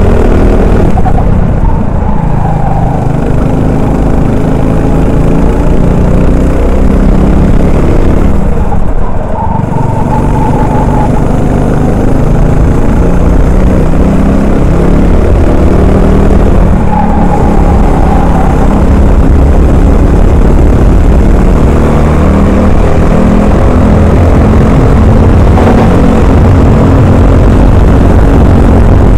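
Honda 390 cc single-cylinder four-stroke kart engine running hard, its pitch falling as the driver lifts for corners (clearly about two and nine seconds in) and climbing again back on the throttle.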